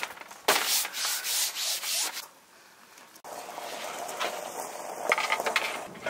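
Wood rubbing and scraping with quick clicks and knocks as the slotted wooden legs and top of a small camp table are worked together. Before that there are bursts of rubbing and a sharp knock, then a short lull about halfway through.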